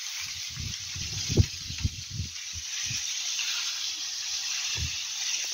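Wind blowing across a phone microphone: a steady hiss with irregular low buffeting thumps.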